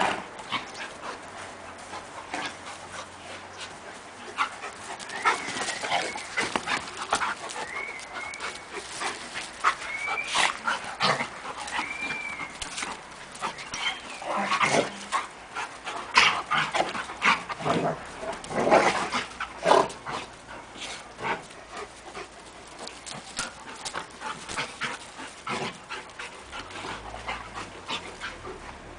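Two Central Asian Shepherd dogs tussling, a long-coated male and a short-coated female: many short sharp dog noises and panting, busiest about halfway through.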